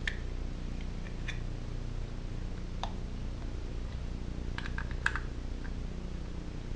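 Light, scattered clicks and taps of a metal points cover being fitted by hand onto a Briggs and Stratton small engine's crankcase, with a small cluster of clicks about five seconds in, over a steady low hum.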